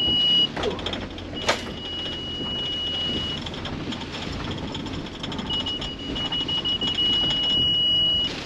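Mercedes Sprinter van driving slowly through floodwater on a rocky track in heavy rain, heard from inside the cab: a steady low rumble of engine, tyres and water. A thin high steady whine comes and goes over it, and there is one sharp knock about one and a half seconds in.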